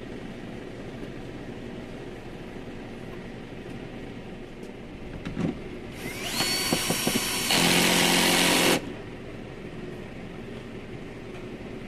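Cordless drill-driver driving a screw into a plastic car door trim panel. About six seconds in, the motor spins up with a rising whine and then runs steadily for about three seconds before stopping abruptly.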